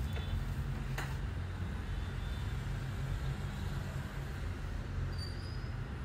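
Steady low background rumble, with a single sharp click about a second in.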